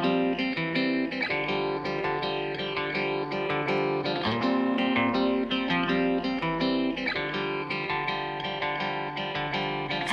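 Background music played on guitar: steady plucked notes with a regular beat.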